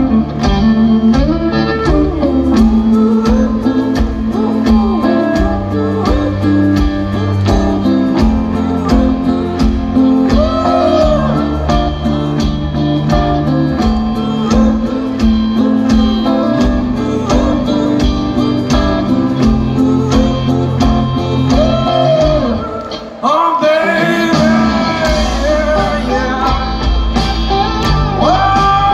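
Live blues-rock band playing through a large outdoor PA, heard from within the crowd: electric guitar over a steady drum beat and bass. About 23 seconds in the music drops away briefly, then the full band comes back in with a heavier low end.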